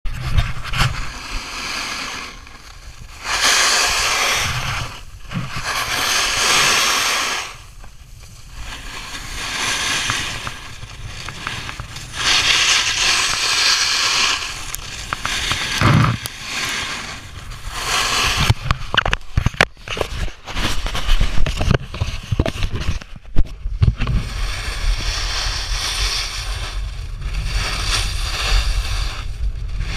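Snowboard sliding and carving on snow: scraping surges that swell and fade with each turn, with a burst of sharp crackling clicks about two-thirds of the way in. A low wind rumble on the microphone grows stronger near the end.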